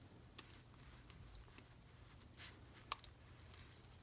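Near silence with a few faint, sharp clicks of small clock-motor parts being handled and fitted together by hand. The clearest click comes just before the 3-second mark, over a steady low hum.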